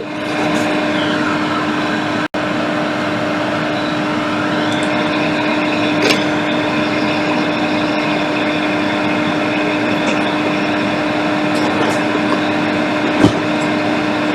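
A small electric blower motor on a repair bench runs steadily: an even whir with a constant low hum. It cuts out for an instant about two seconds in, and there are a few faint ticks.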